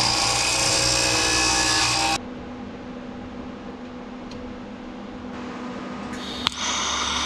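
Abrasive chop saw cutting through steel rod for about two seconds, cutting off abruptly. Near the end, a sharp click as a TIG welding arc strikes, followed by about a second of arc hiss and buzz.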